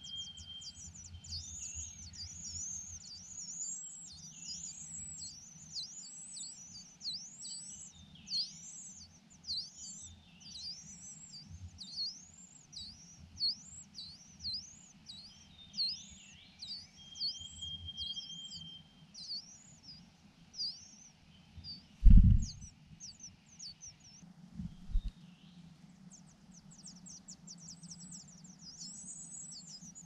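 Large niltava nestlings begging at the nest: a long run of high, thin, arched calls about one or two a second, turning into rapid chittering near the end. A single loud thump about three quarters of the way through.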